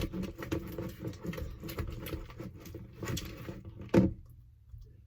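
Glue slime thickening as the activator takes hold, stirred in a bowl: a run of small sticky squelches and clicks, with a louder one about four seconds in, then it goes quiet.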